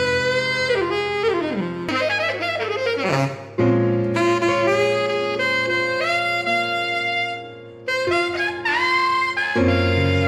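Instrumental background music: a melody of held notes, some sliding in pitch, over sustained low notes, dipping briefly about three quarters of the way through.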